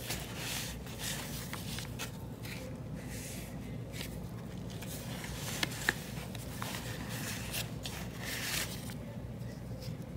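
Paper and card being handled: rustling and sliding in short bursts as tags and a card are pulled from the pockets of a handmade paper journal, with a couple of light clicks about six seconds in.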